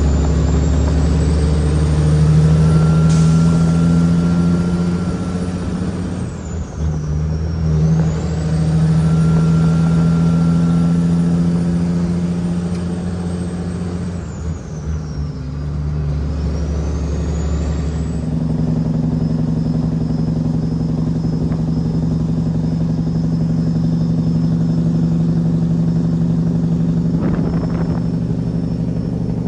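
Heavily loaded Kenworth W900L's Cat 6NZ inline-six diesel pulling under load, with a high turbo whistle. Twice, about 7 and 15 seconds in, the engine note dips and the whistle falls and then climbs again, as at a gear change. The engine then runs on steadily, with a brief click near the end.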